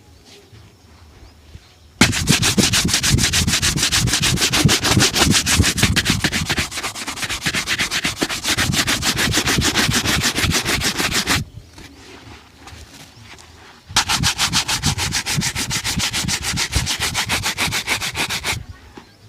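Rapid rubbing strokes on a leather shoe during shoe shining, in two long spells with a short pause between them.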